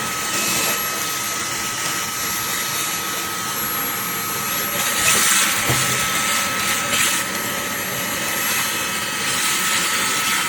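Fanttik Slim V8 APEX cordless handheld vacuum running steadily with a constant high-pitched motor whine and a rushing hiss, which swells briefly about five and seven seconds in.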